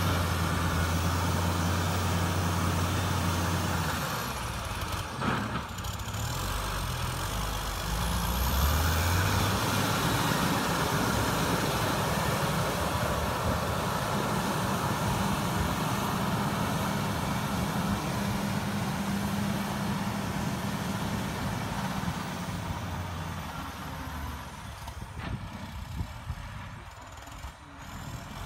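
John Deere 670CH motor grader's diesel engine running under load as it grades loose soil. The engine note shifts about four to nine seconds in, then holds steady, and grows fainter near the end as the grader moves away.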